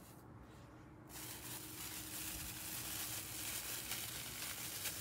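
Steady crinkly rustling of craft supplies being handled, starting about a second in.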